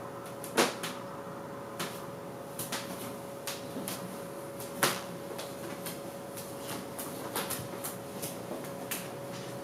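Scattered small indoor clicks and knocks, two of them much louder about half a second and five seconds in, over a steady faint hum.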